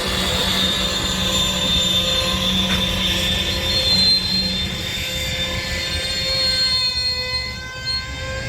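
Screeching from freight railcars moving slowly through the yard, steel on steel. The screech is a steady, high-pitched set of held tones over a low rumble, and fades somewhat near the end.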